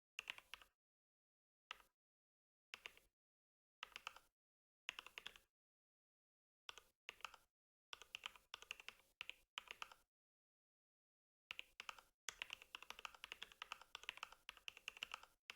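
Mechanical keyboard with a deep, thocky keystroke sound being typed on: short bursts of a few keys separated by pauses, turning into continuous fast typing for the last few seconds.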